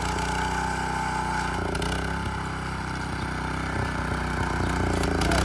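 Small engine of a walk-behind cultivator running steadily under load, pulling a bean-seeding attachment that forms the ridge, lays plastic mulch and sows; it grows slightly louder toward the end.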